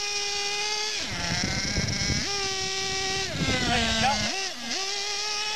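Radio-controlled truck's motor running at high revs with a buzzy, steady pitch. It falls off about a second in, climbs back after two seconds, drops again past three seconds and winds back up near the end as the throttle is eased and reapplied.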